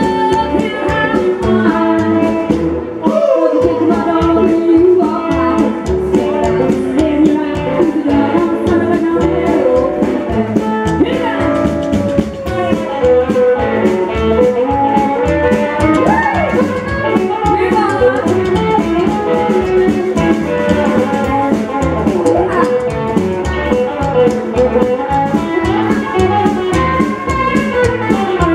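A live band playing: a woman singing at times over a hollow-body electric guitar, upright double bass and a drum kit keeping a steady beat.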